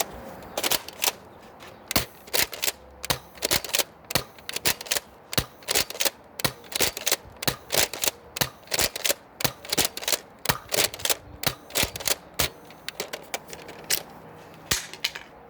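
X-Shot Regenerator foam-dart blaster being primed and fired again and again: a long run of sharp plastic clacks, about two or three a second, stopping shortly before the end.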